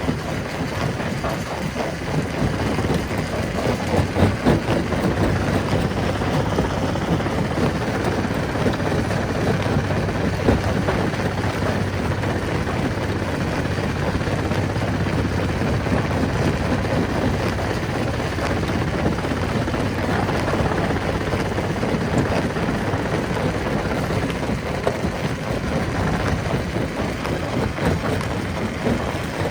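Rock-crushing machine running: a steady heavy mechanical din with a constant irregular clatter of breaking and tumbling stone.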